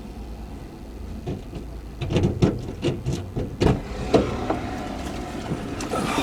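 Low steady hum of a car with its engine running, heard from inside, joined about a second in by a run of irregular sharp clicks and knocks.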